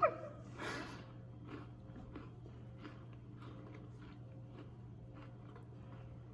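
People chewing soft cookie ice cream sandwiches, faint, even bites and chews about three a second, over a steady low hum.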